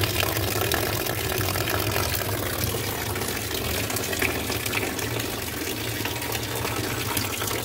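Water from a leaking 1.5-inch cold water line above the ceiling runs down in a steady stream and splashes into a plastic trash can holding water. It is still trickling with the water shut off: the valves are not fully stopping the flow.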